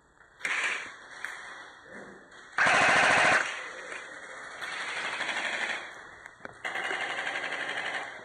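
Airsoft guns firing full-auto in bursts of rapid shots: a short burst about half a second in, the loudest burst around three seconds in, then two longer bursts in the second half.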